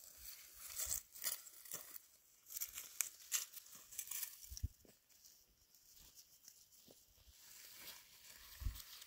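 Faint, irregular dry rustling and crackling, with quick tearing sounds in the first few seconds and two low thuds, one about halfway and one near the end.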